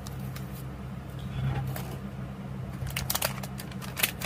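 Plastic toy blind bag crinkling as it is handled, a quick run of crackles starting about three seconds in, over a steady low hum.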